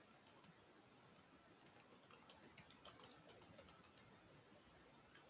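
Near silence: room tone with faint, scattered computer keyboard clicks, mostly in the middle.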